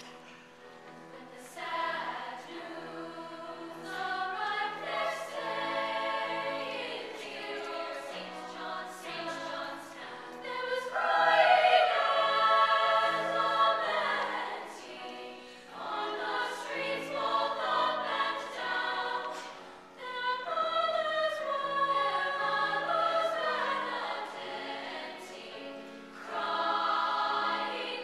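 Youth choir of mostly girls singing a choral piece in several parts, starting softly and swelling to its loudest about halfway through.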